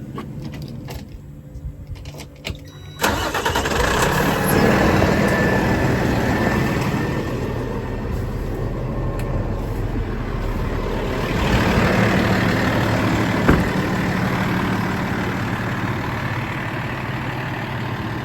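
An engine starts up suddenly about three seconds in and then runs steadily, swelling briefly around twelve seconds, with a sharp click shortly after.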